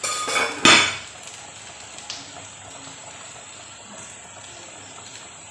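Metal kitchenware clattering against a cooking pot, a short rattle followed by a louder clink within the first second. After it, a faint steady sound of the uncovered pot of soup boiling.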